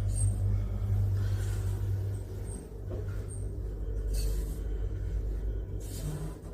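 Lift running: a steady low hum from its machinery while the car travels, dropping to a deeper hum about two and a half seconds in.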